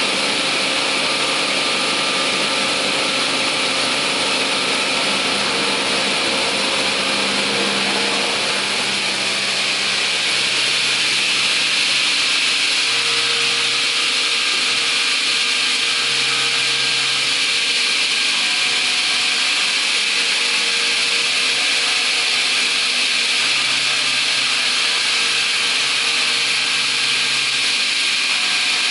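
Raimann KR 310E track-feed multi-rip saw running without timber: a steady whirr and hiss from its motor and spinning saw blades.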